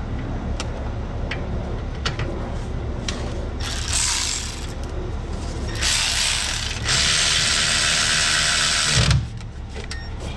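Ratchet wrench clicking in bursts as the brake caliper's lower bolt is run back in. There are a few separate tool clicks first, then short runs and one longer, loud run of about two seconds near the end.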